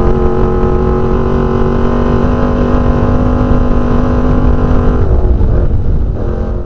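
Off-road desert race car's engine running hard at steady high revs, heard from inside the cockpit over a heavy rumble from the rough track. About five seconds in, the steady engine note starts to waver.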